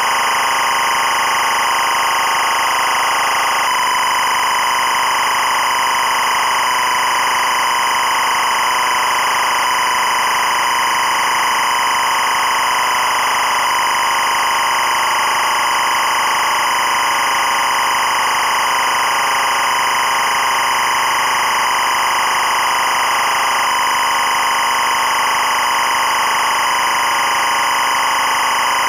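EBU linear timecode (LTC) audio at 25 frames per second: a continuous, steady, high buzz of encoded data carrying the running hours, minutes, seconds and frames, meant to be fed into a timecode slate app.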